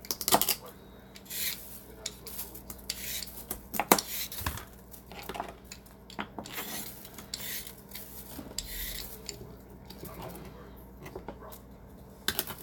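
Irregular clinks, knocks and scraping of kitchen utensils against dishes during food preparation, with a louder knock about four seconds in.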